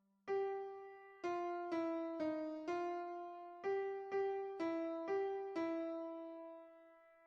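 Piano-type keyboard tone playing a short phrase of about ten struck notes, mostly two at a time, each one decaying. The last note is held and fades out near the end.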